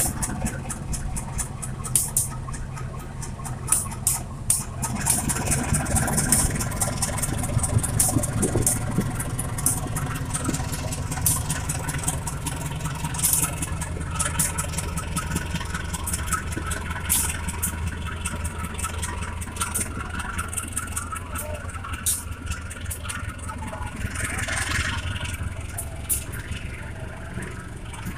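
CC 201 diesel-electric locomotive pulling a departing passenger train, its engine running with a steady low drone. Many sharp clicks from the wheels passing over the rail joints are heard, most of them in the first half.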